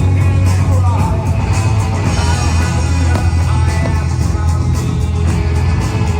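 Loud rock music with guitar and singing over a heavy, steady bass.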